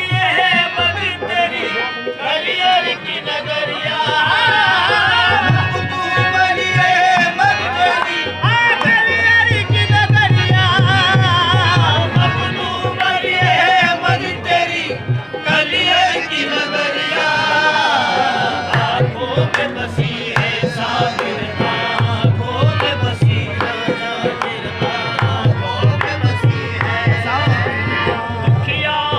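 Qawwali-style devotional music: voices singing over a harmonium, with tabla drumming that comes in and drops out in passages.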